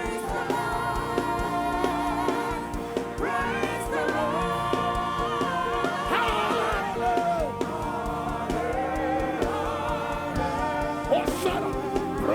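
Live gospel praise music: voices singing held notes over a keyboard band with a steady beat.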